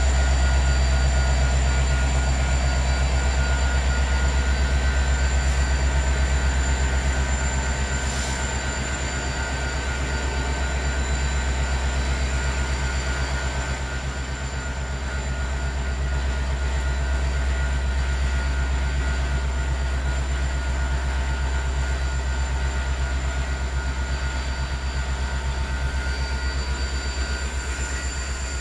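Ballast work train rolling slowly past: a continuous heavy, low rumble of the locomotive and cars, with a faint steady high whine above it.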